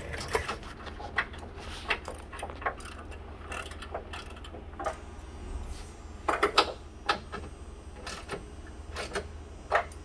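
Allen key working a treadmill's rear roller tension bolt: a series of irregular sharp clicks and ticks as the key is turned and reset, with a tight cluster of clicks about six and a half seconds in. The bolt is being tightened to take up a slack running belt, the cause of the treadmill's knocking.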